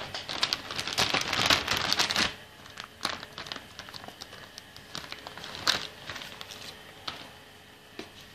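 Clear plastic wrapping crinkling as a graphics card is slid out of it. There are about two seconds of dense crinkling, then scattered single crackles that thin out toward the end.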